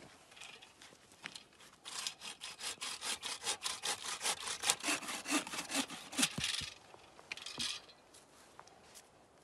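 Wooden-framed bow saw cutting through a thin green log in quick, even back-and-forth strokes. The sawing starts about two seconds in, runs for about five seconds and stops, and a couple of light knocks follow.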